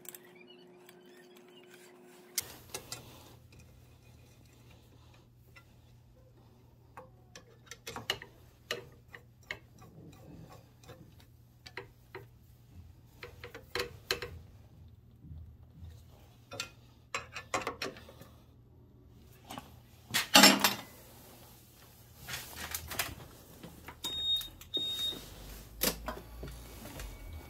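Scattered metal clicks, taps and knocks of hand tools working on a scooter engine during an ignition-coil replacement, with one louder clatter about two-thirds of the way through, over a low steady hum.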